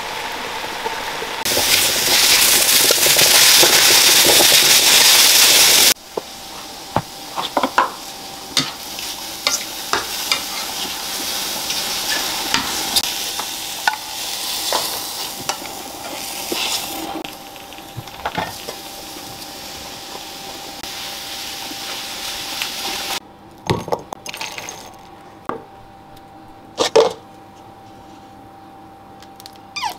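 Sliced mushrooms sizzling in a frying pan, loudest in the first few seconds, with frequent clicks and scrapes of a utensil against the pan. The sizzle drops away a little before the end, leaving a few separate knocks.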